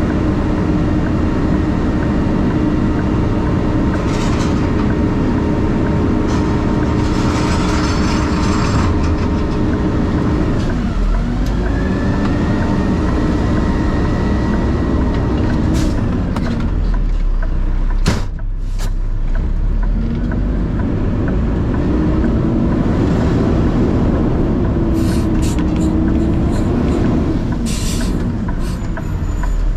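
Vehicle running on the road: a steady engine and road rumble, with the engine note falling and climbing again a few times.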